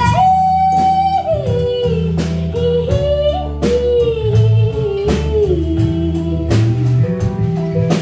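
Live country-blues band playing an instrumental passage: a lead guitar line with sliding notes that steps downward, over bass and a drum kit.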